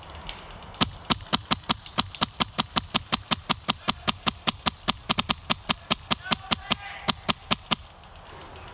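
Wolverine MTW HPA airsoft rifle firing a long, steady string of shots, about five a second, which stops shortly before the end. The shooter keeps firing past the target's call of hit.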